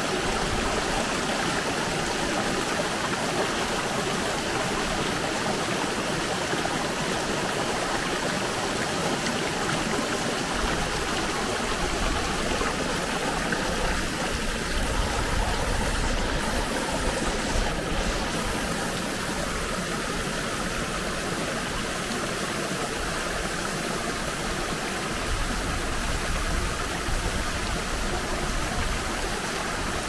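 Steady rush of running water from a mountain stream, a continuous noisy wash that does not change its character.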